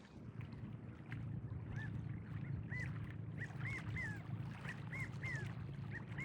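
A bird calling in a series of short, clear notes that each rise and fall, about a dozen at uneven spacing starting about two seconds in, over a steady low hum.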